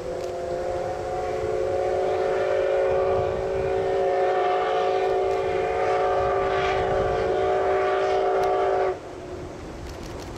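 Steam locomotive whistle, C57 180's, sounding one long, steady multi-note blast that cuts off suddenly about nine seconds in.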